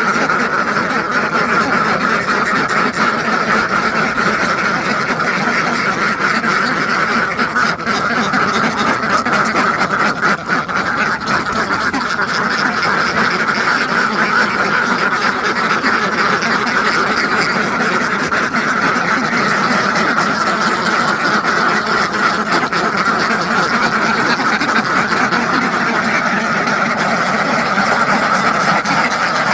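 A large flock of farmed domestic ducks quacking all together, a dense, unbroken chorus of overlapping calls.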